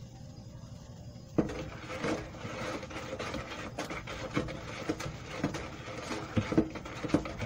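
Stick blender shaft being stirred by hand through oil in a plastic bucket, with irregular knocks and scraping against the bucket as baking soda is tipped in, starting about a second and a half in.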